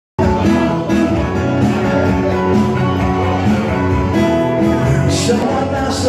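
Live acoustic guitar played with a man singing, the song cutting in suddenly mid-performance.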